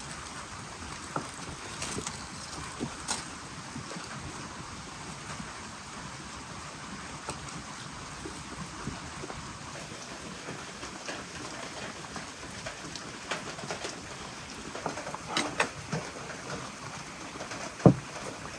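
Steady rain falling, with scattered small taps and clicks of food and dishes being handled, and one sharp knock of wooden dishware near the end.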